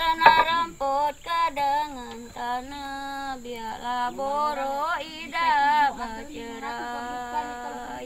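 A woman singing a melody, sliding between notes and holding some of them with a wavering vibrato.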